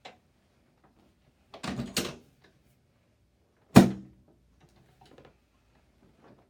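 Chiropractic flexion-distraction table knocking as its section is worked sideways under the patient: a quick cluster of knocks about a second and a half in, then one loud, sharp knock about two seconds later.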